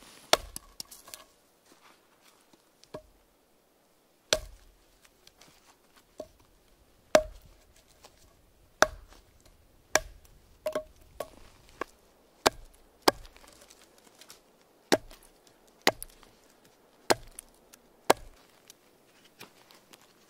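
Skrama bush knife chopping into a small wooden log: a series of sharp single chops, roughly one a second and a little irregular, with a short pause early on.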